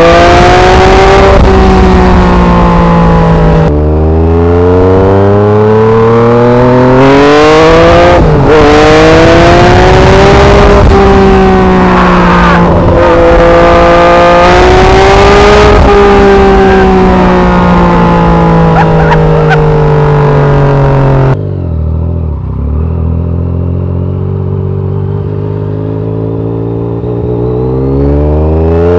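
Yamaha MT-09's 847 cc inline-three engine breathing through an SC Project aftermarket exhaust, heard from the rider's seat while riding. It revs up hard several times, with a quick break and drop in pitch at each gear change. About two-thirds of the way in the throttle closes and it goes quieter and lower, then pulls up again near the end.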